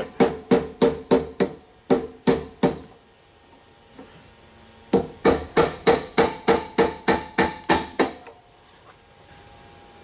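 Brass hammer striking a wooden dowel held against a furnace blower shaft, driving out a shaft that has a bearing seized onto it. There are two runs of quick blows, about three a second, with a pause of about two seconds between them, and a faint ringing tone lingers after them.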